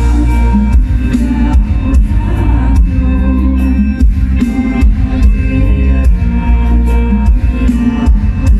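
Loud Thai ramwong dance music from a mor lam show band, with heavy bass and a steady drum beat of about two strokes a second.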